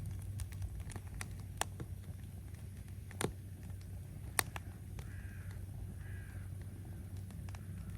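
Quiet campsite ambience: a low steady hum with scattered sharp clicks and crackles, and two short, faint calls about five and six seconds in.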